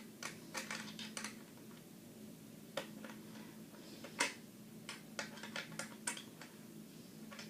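Small wrench tightening a bolt on a metal pull-up bar: faint, irregular light metallic clicks and clinks of the tool on the nut and bar parts.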